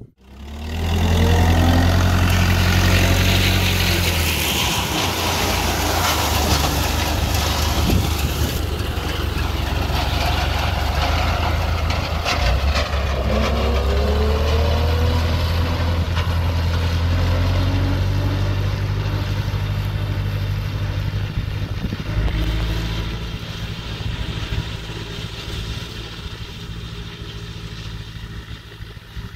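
John Deere 2250 tractor's diesel engine working steadily while it drives a Polish rotary mower through alfalfa. The sound is loud, with a deep steady hum, and fades over the last several seconds as the tractor draws away.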